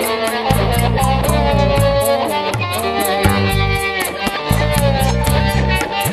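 Instrumental band music: a guitar plays a sliding melody over a pulsing bass line and a steady drum beat.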